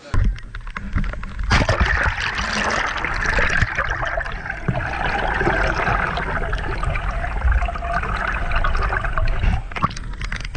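Water rushing and gurgling around an underwater camera, with many small clicks and knocks of water against the housing.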